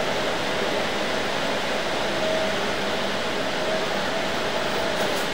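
Steady mechanical hum and hiss with a faint steady tone in it.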